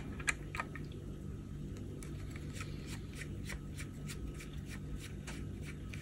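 Precision screwdriver turning out a small screw from a camera circuit board: faint, irregular little clicks and ticks as the driver works the screw.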